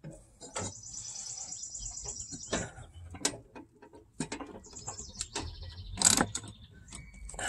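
Scattered metal clicks and knocks from a ratchet and socket as a V-belt is worked onto a mower deck pulley, the loudest near the end. A songbird trills in the background.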